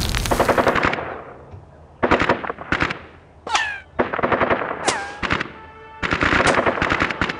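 Battle sound effects: the tail of an explosion dies away in the first second, then a series of short bursts of rapid machine-gun fire follows, the longest burst near the end.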